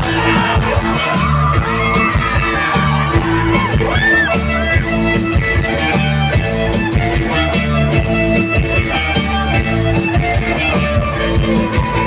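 A live rock band playing loudly through a concert sound system: electric guitars over a driving drum kit and bass, heard from the crowd.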